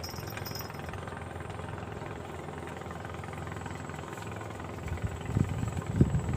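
A small engine running steadily at idle, with louder, uneven low rumbling starting about five seconds in.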